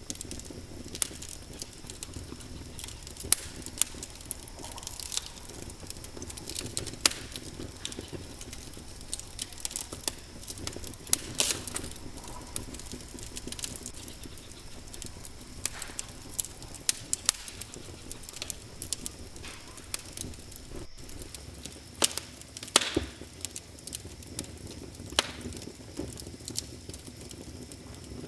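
Wood fire crackling in a fireplace: irregular sharp pops and snaps over a soft steady burning hiss.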